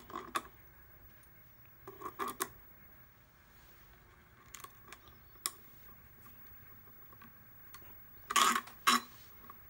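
Small metal clinks and clatters of washers, nuts and a wrench being handled on steel all-thread rods: scattered clicks, a short cluster about two seconds in, and two louder clatters near the end.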